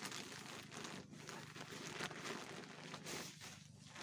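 A plastic bag crinkling and rustling as it is handled and pushed down into a woven sack.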